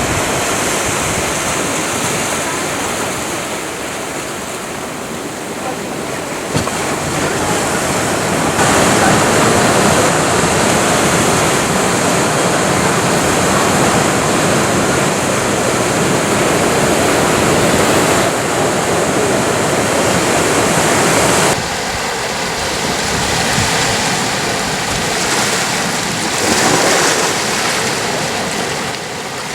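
Atlantic waves breaking on rocks, a continuous churning wash of surf. It steps up louder about a third of the way in, drops back suddenly about two-thirds through, and swells once more near the end.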